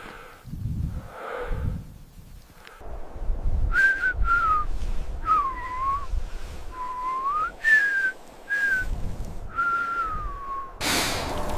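A person whistling a string of short notes, some swooping down and back up and the last gliding down, over a low rumble.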